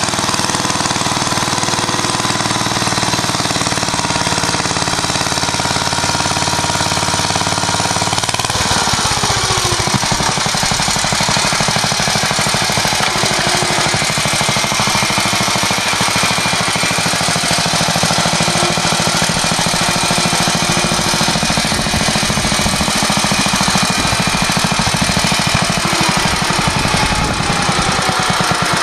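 1947 Clifford Mk1 two-wheel tractor's J.A.P. engine running while the tractor pulls a plough. About eight seconds in the engine note drops and settles into slower, distinct firing beats, and it falls again near the end.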